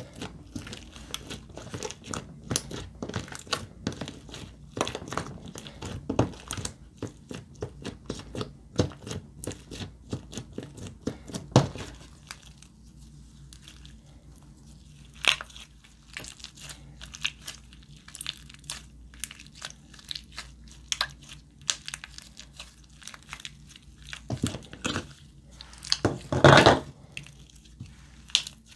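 Hands kneading, stretching and squeezing glossy slime, making rapid sticky clicks and crackles, with a quieter spell in the middle and a louder cluster of pops near the end.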